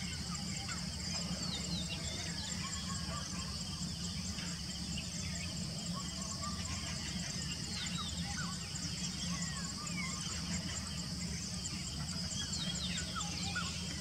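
Natural woodland ambience: a steady high insect drone with a fast pulsing trill, a low steady hum underneath, and many faint, short chirps of small birds scattered throughout.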